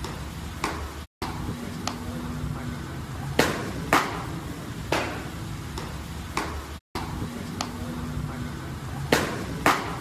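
Baseballs popping sharply into leather gloves as pitches and return throws are caught, about ten pops, the loudest a pair about half a second apart that comes twice. A steady low background hum runs under them, and the sound cuts out briefly twice.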